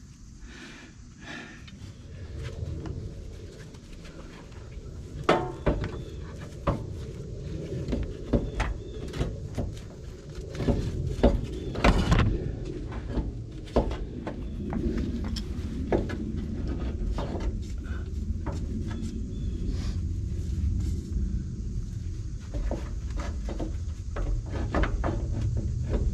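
Scattered metal knocks and clunks over a steady low rumble, as a GMC motorhome's front drive axle is worked loose and maneuvered out.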